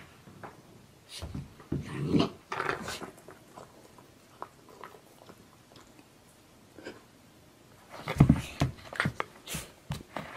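Small white puppy making short barks and yelps in irregular bursts, a cluster about two seconds in and a louder run near the end.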